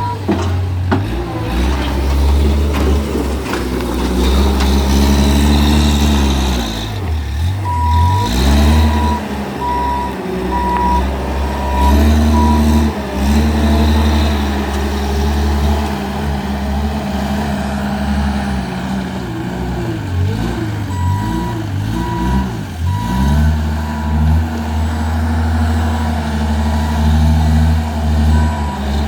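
JCB 155 skid steer loader's diesel engine running under changing load, its pitch dropping and climbing back twice, with the reverse alarm beeping steadily through much of it from about eight seconds in.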